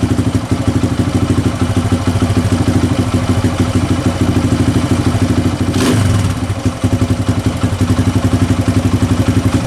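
Kawasaki KLX140's single-cylinder four-stroke engine idling on a newly fitted Mikuni VM26 carburetor, with an even, fast pulse and a brief surge about six seconds in. The owner thinks it is slightly starved for fuel by a kinked fuel line.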